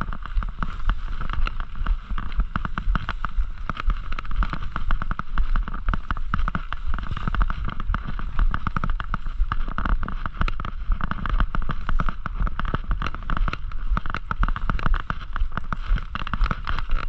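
Mountain bike ridden over a rough off-road trail: a dense, continuous rattling and crackling of tyres and frame over the ground, over a low rumble.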